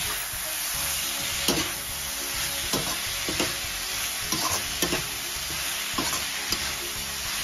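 A metal spatula stirring mung bean sprouts, peas and chopped tomatoes in a kadhai, scraping and clicking against the pan a handful of times over a steady sizzle from the hot pan.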